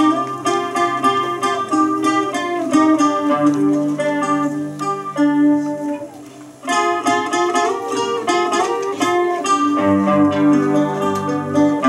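Acoustic guitar playing the instrumental introduction to a slow Korean folk song: picked melody notes over sustained low bass notes. The playing breaks off briefly about six seconds in, then resumes.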